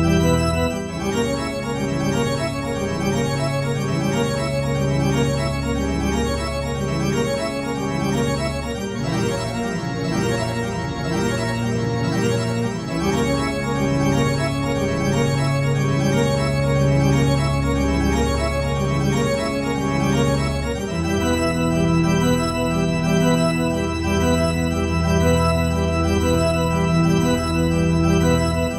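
Instrumental music with sustained chords over long held bass notes, the harmony changing every few seconds and shifting about three quarters of the way through.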